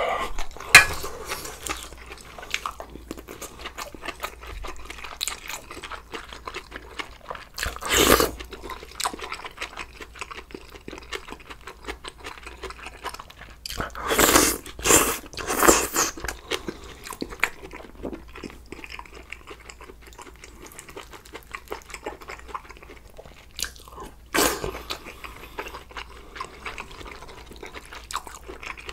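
Close-miked eating of sausage stew with ramen noodles: steady wet chewing and mouth noises, broken by louder noodle slurps about eight seconds in, three in a row around the middle, and one more later on.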